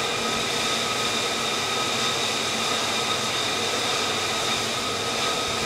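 Jet engine idling: a steady rushing noise with a high, even whine.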